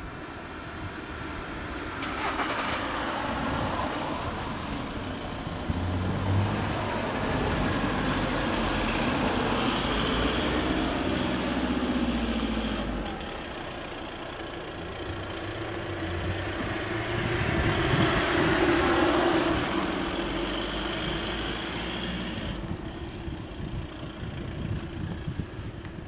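E57 electromechanical siren winding up and running down twice, its pitch staying low, below 400 Hz, and its sound weak: the rotor turns the wrong way, so the added air drag keeps it from full speed and full volume.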